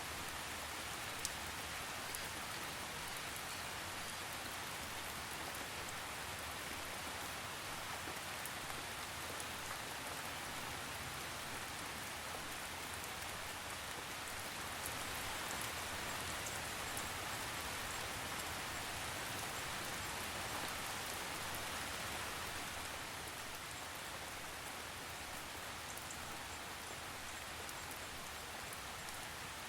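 Steady rain falling, an even hiss with scattered drop ticks, swelling a little about halfway through.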